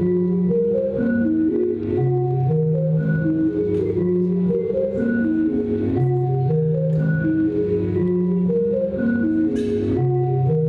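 Electronic music: sustained organ-like keyboard tones stepping through a repeating looped phrase over a low bass line.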